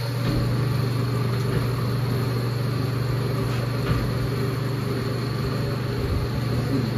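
Steady low mechanical hum of ventilation machinery inside a submarine's compartment, with a faint high whine above it and a few faint ticks.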